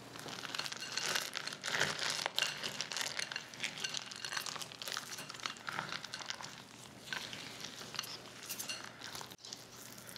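Silicone spatula folding dark chocolate couverture discs into sticky cookie dough in a glass bowl: the discs clatter and scrape against each other and the glass in a busy, irregular run of small clicks, quieter after a short break near the end.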